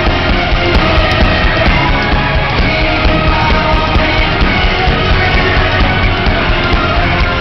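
Loud rock music with a steady beat, the video's soundtrack laid over the footage.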